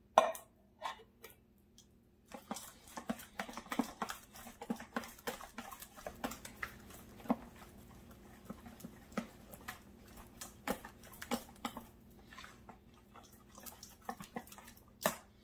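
Wire whisk stirring thick, wet corn-pudding batter of cream-style corn and beaten eggs in a plastic bowl: quick, uneven squelching strokes with light clicks of the wires against the bowl, easing off near the end, followed by a single sharp knock.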